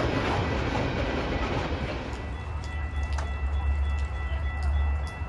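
A train passing, its rumble and wheel noise fading away over the first two seconds, leaving a steady low hum with a few faint high tones.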